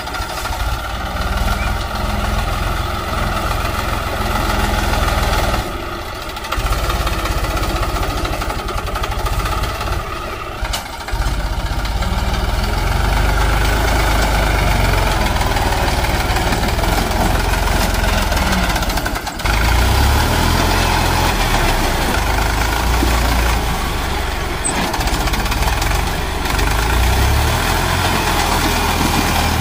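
HMT 3522 tractor's three-cylinder diesel engine running as the tractor drives over loose earth, the sound breaking off abruptly a few times.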